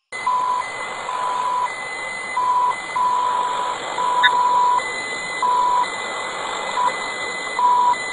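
A steady-pitched electronic beep keyed on and off in irregular short and long lengths, over a steady hiss like radio static. The sound starts abruptly out of silence.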